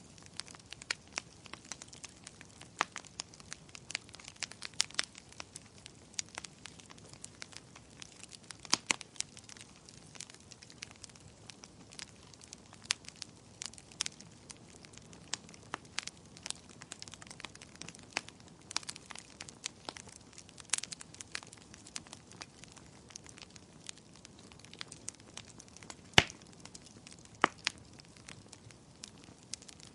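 Wood fire in a fireplace crackling, with frequent irregular pops and snaps over a faint steady hiss, and a few louder pops.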